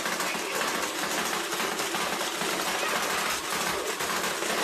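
Animated toy skeleton malfunctioning, giving off a harsh, continuous rapid rattle with no break.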